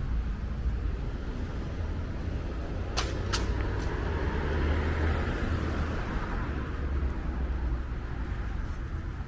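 City street ambience with road traffic: a steady low rumble, and a passing vehicle's hiss that swells and fades over the middle. Two sharp clicks about three seconds in.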